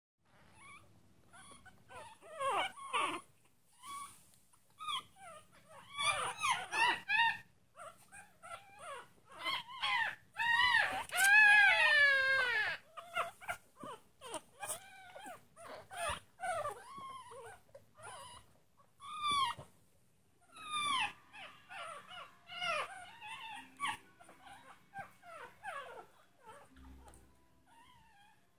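Chihuahua puppies howling and crying in many short, high, wavering calls. Around the middle comes one longer howl that slides down in pitch and is the loudest sound.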